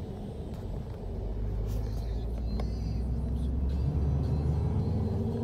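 Low car engine and road rumble heard from inside the cabin, growing louder about a second in.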